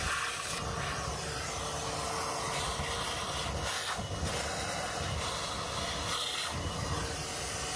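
Wet vac running, sucking water and air out of open heating pipework through its hose: a steady rushing hiss over a motor whine.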